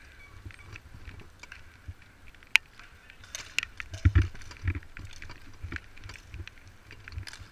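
Bike polo play on asphalt: scattered clicks and rattles of bicycles and mallets, with one sharp knock about two and a half seconds in and a few low thumps around four seconds in.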